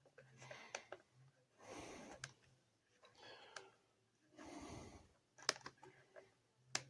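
Quiet handling sounds: a few sharp clicks and taps, the loudest near the end, between soft breaths close to the microphone.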